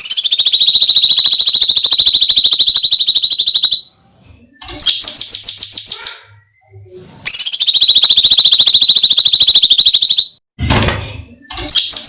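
Cucak cungkok song: two long, loud, high rapid-fire trills of about three seconds each, with short whistled phrases between them and a brief harsh scream-like call near the end.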